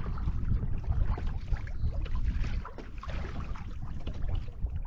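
Wind buffeting the microphone in gusts, with water splashing and lapping against the hull of a canoe moving over choppy river water.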